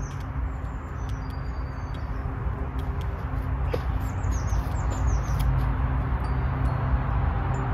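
Birds chirping in short series of high descending notes, over a steady low rumble and faint hum.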